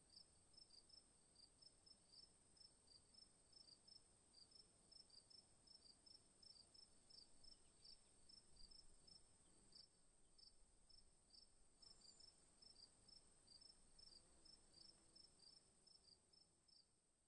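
Faint insect chirping, about three short chirps a second, over a steady high-pitched whine.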